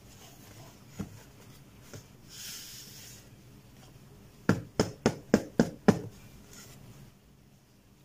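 Cardboard product box being handled: a faint slide across it, then six quick sharp taps on the box, about three a second.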